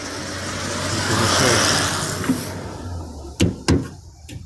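A swell of rushing noise lasting about two and a half seconds, then two sharp knocks about a third of a second apart as the car's raised bonnet is handled.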